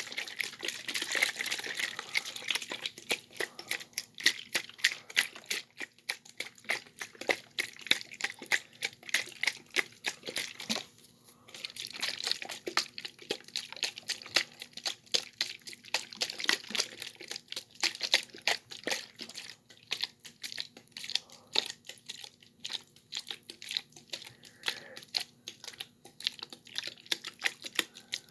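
Close-miked ASMR sounds of objects being handled: dense, rapid, irregular clicking and crinkling, with heavier crinkly stretches near the start and about halfway through.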